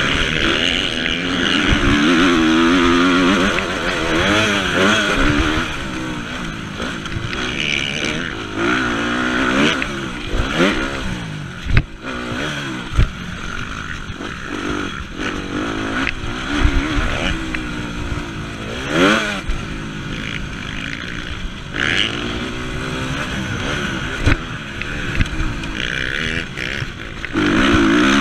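Motocross bike's engine heard close up from on board, revving hard, its pitch rising and falling again and again as the rider accelerates, shifts and backs off. Sharp knocks and rattles come through now and then.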